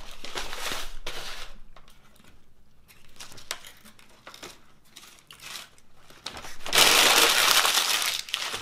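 Paper takeout bag and food wrapper rustling and crinkling as food is pulled out by hand, with scattered small crinkles and a longer, louder rustle near the end.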